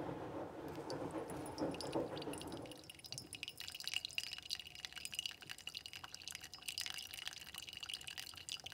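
Brewed coffee dripping and trickling from a paper drip bag into a mug as hot water is poured from a gooseneck kettle: a rapid patter of fine drips over a thin, steady ringing. A low rushing sound fills the first three seconds before the dripping takes over.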